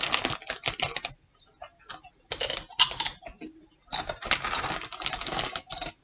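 Crunching Doritos tortilla chips while chewing: irregular runs of crisp, crackly crunches in two main spells, with scattered single crunches between.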